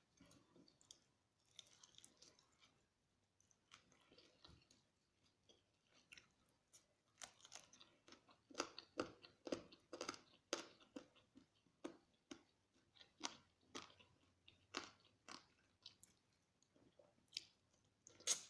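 Close-up chewing and crunching of spicy fried chicken, bite after bite in irregular crunches, sparse at first and busier from about a third of the way in, with one sharp crunch or click near the end.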